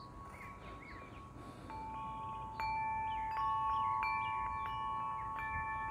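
A wind chime ringing in a breeze: several notes struck one after another from about two seconds in, each ringing on and overlapping, louder from near the middle. A few faint bird chirps come before the chime picks up.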